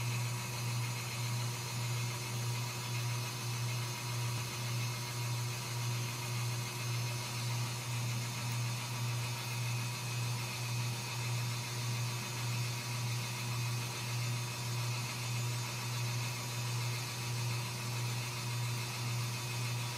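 Ragdoll cat purring: a low, steady hum that swells and fades in a quick, even rhythm.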